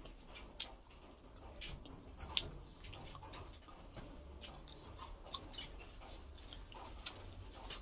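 Quiet eating sounds: chewing with scattered short clicks and smacks, the sharpest about two and a half seconds in and again near the end.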